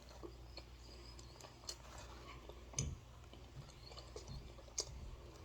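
A person chewing a mouthful of chicken sandwich, quietly, with a few short mouth clicks.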